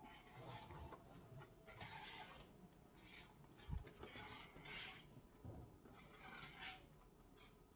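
Near silence with faint rustling and handling noises and one soft thump about four seconds in.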